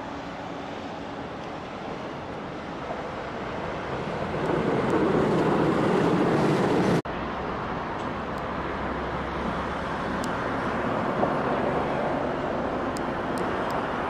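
Steady outdoor rumble of passing vehicles that swells to its loudest over a few seconds, then cuts off abruptly about seven seconds in. After the cut a steady rumble slowly grows as a train draws near the station.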